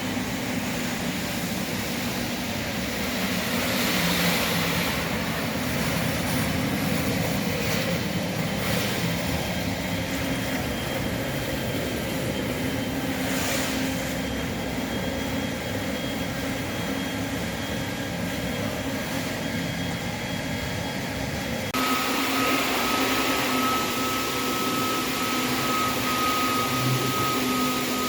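Industrial floor-cleaning machine's vacuum motor running steadily with a high whine. About 22 seconds in, the sound cuts abruptly to a slightly louder run with a different whine.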